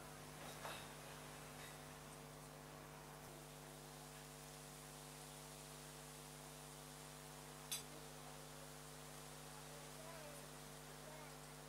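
Faint, steady electrical hum under a light hiss, with one sharp click about two-thirds of the way through.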